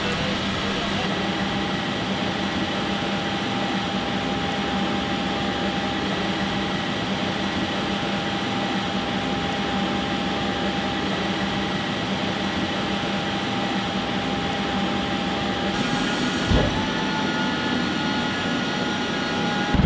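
Steady aircraft turbine drone with a constant whine, holding even throughout, with one dull thump about three-quarters of the way through.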